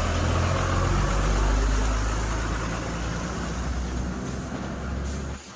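A motor vehicle's engine running steadily at idle, a loud low hum that breaks off briefly near the end.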